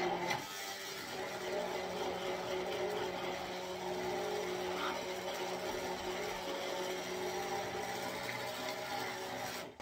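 Electric blender motor running steadily as it purées cooked vegetables and potato in a jar, then cutting off abruptly near the end.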